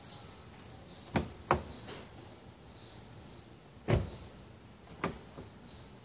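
Hyundai Sonata (LF) door locks unlocking automatically as the owner approaches, with two sharp clunks close together about a second in. Near the middle comes a heavier thump as the driver's door latch releases and the door is pulled open, followed by a lighter click.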